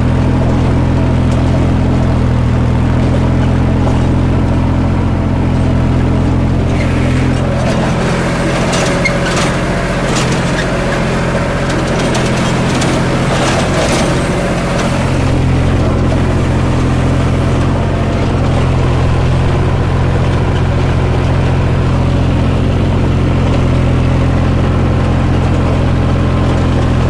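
50 HP Massey Ferguson tractor engine running steadily under load at a set throttle while it pulls a rotavator through the field soil. From about 8 to 15 seconds in, the even engine note wavers and rougher clattering comes through.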